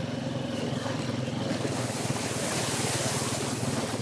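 ATV engine running steadily while riding, with a rush of hissing noise swelling up about halfway through.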